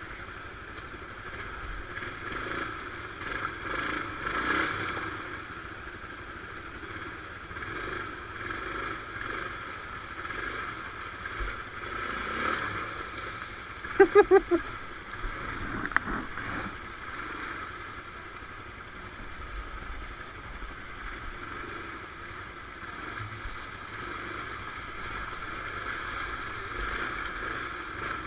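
Quad bike (ATV) engine running under way, its note rising and falling with the throttle. About halfway through there is a quick run of four short, loud beeps, then a sharp knock.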